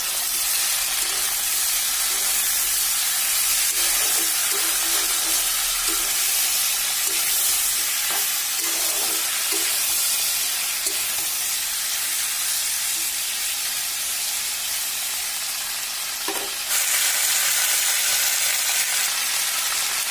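Raw jackfruit pieces sizzling as they fry in oil in a kadhai, stirred now and then with a spatula. The sizzling gets louder about three-quarters of the way through.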